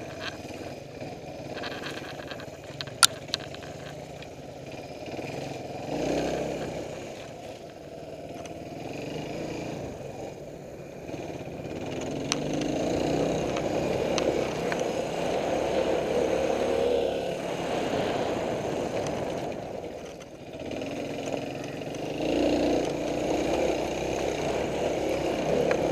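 Suzuki DR350's single-cylinder four-stroke engine pulling the bike along a rough trail, its revs swelling and easing every few seconds with the throttle. A couple of sharp clicks come about three seconds in.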